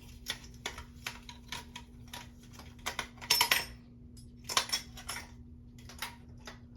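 Parts of a toilet flush valve clicking and knocking as they are fitted together and locked in place: a run of small irregular clicks, with louder clatters about three and a half and five seconds in.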